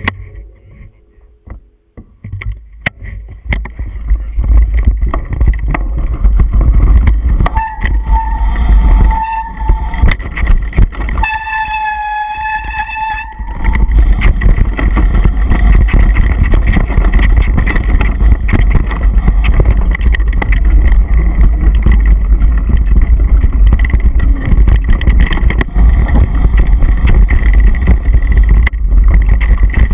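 Mountain bike descending a dirt trail at speed, heard as a steady loud rumble of wind buffeting the camera microphone and the bike rattling over the ground, quieter for the first few seconds. About eight seconds in, and again around twelve seconds in, a high squeal sounds for a second or two, typical of the bike's brakes squealing while the rider slows.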